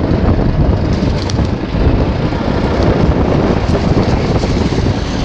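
ATV engine running, with wind buffeting the microphone.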